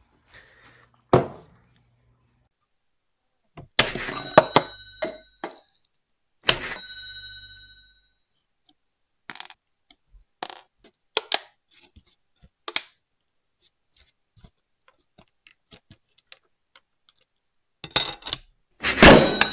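Scattered clicks and knocks of hard objects being handled, two of them followed by a brief metallic ringing, and a burst of rustling near the end.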